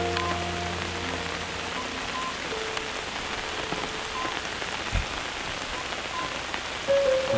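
Steady rain falling, an even hiss of drops, with a single dull thump about five seconds in. Soft background music holds a few notes at the start and comes back in near the end.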